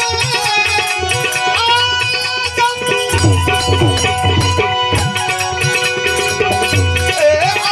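Instrumental passage of a Gujarati devotional bhajan: tabla drumming under a held melody line on an accompanying instrument, with no singing.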